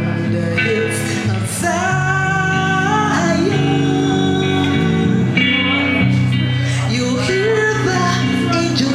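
Live band music: a melody line bending in pitch over steady bass and chords.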